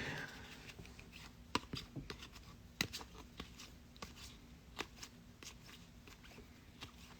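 Trading cards being handled and flipped through one by one, with faint scattered clicks and slides of card stock and a brief rustle at the start.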